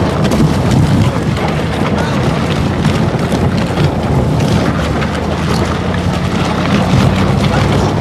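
Fibreglass boat hull being towed across sandy, gravelly dirt, a loud continuous scraping rumble of the hull grinding over the ground. A steady low hum runs beneath it.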